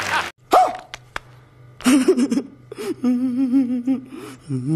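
A man crying and wailing in a wavering, sobbing voice, in drawn-out cries that break off and start again, over a low steady hum. The sound before it cuts off abruptly just at the start.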